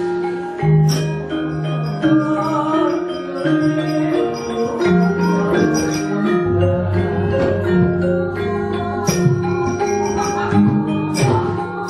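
Javanese gamelan playing fight music for a wayang kulit battle scene: bronze metallophones ringing in quick runs of struck notes over lower sustained tones. Near the end comes a sharp metallic rattle from the dalang's keprak plates.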